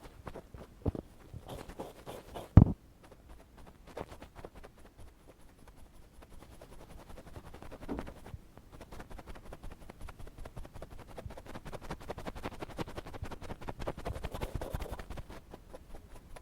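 Ear pick scratching and scraping in quick, dense strokes, with one sharp louder knock about two and a half seconds in.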